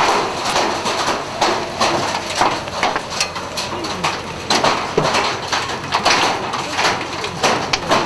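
Baseball-sized hailstones striking the storm-chase vehicle, irregular sharp bangs several a second over a steady hiss of wind and rain.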